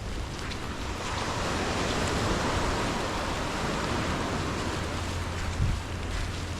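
Steady hiss of heavy rain mixed with surf washing on a beach, swelling about a second in, over a low rumble of wind on the microphone. A brief bump about five and a half seconds in.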